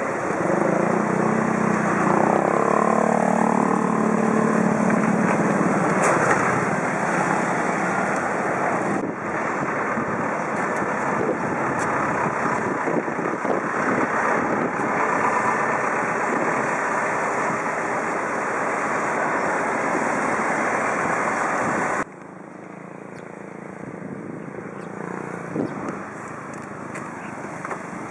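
Traffic and wind noise heard while cycling: a motor vehicle's engine passes in the first few seconds over a steady rushing noise. The level drops suddenly about 22 seconds in, leaving a quieter rush.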